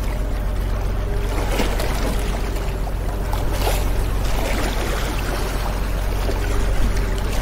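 Motorboat engine running steadily as a low, even drone, with water rushing and splashing around the boat.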